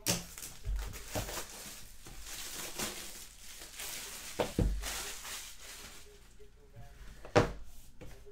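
Hands handling a cardboard trading-card box on a table: rubbing, rustling and scraping, with a few sharp knocks as it is set down, the loudest about seven seconds in.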